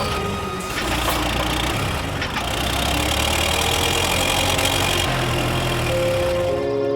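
Cartoon car engine sound effect running steadily.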